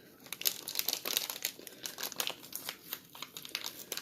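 Plastic seasoning packet crinkling and crackling as it is pulled and torn open by hand, without scissors, in a dense run of irregular crackles.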